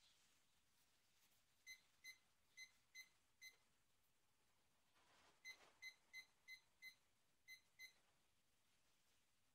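Digital kitchen timer beeping at each button press as it is set for 12 minutes: five short high beeps, a pause, then eight more.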